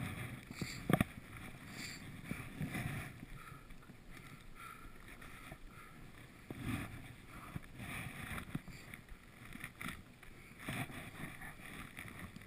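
Skis swishing through deep powder snow in uneven rhythmic strides, with pole plants and clothing rustle close by. A sharp knock sounds about a second in.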